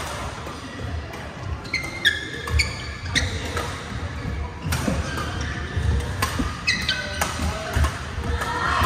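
Badminton play: sharp smacks of rackets hitting shuttlecocks, short high squeaks of court shoes on the floor and footfalls, echoing in a large hall.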